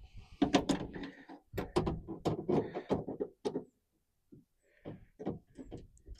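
Irregular metallic clicks and knocks of a hand tool, a 1/4-inch ratchet with a swivel-head Torx T20 bit, being fitted and worked on a backup-camera screw inside a truck tailgate, with a pause of about a second partway through.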